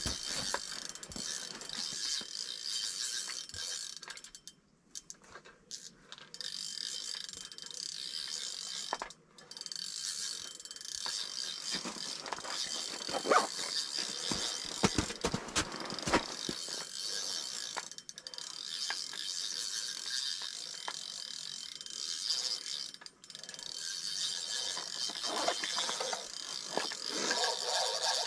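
Spinning reel on an ice-fishing rod being cranked, its gears whirring and clicking steadily, reeling in line. The cranking stops briefly a few times, and there are a few louder knocks about halfway through.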